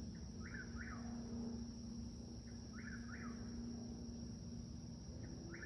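Whip-poor-will singing its short, three-part call, three times about two seconds apart. Underneath runs a steady low rumble of distant traffic.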